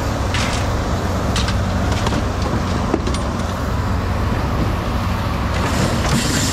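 Vehicle engine and road noise, a steady low hum, with a few light rattles or clicks over it.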